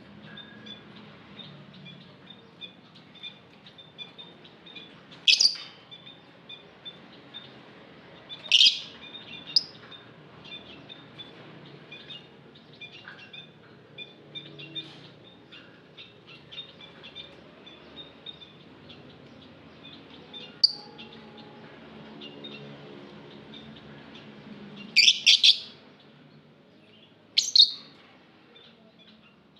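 Lovebirds chirping in a steady stream of quick, soft twitters. Loud high-pitched calls break through a few times, with a cluster of them near the end.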